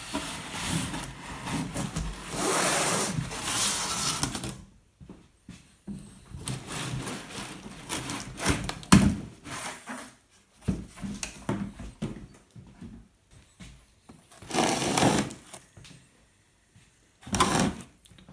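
Cardboard retail box being opened and its packaging handled: bursts of scraping, sliding and rustling, with a sharp knock about nine seconds in.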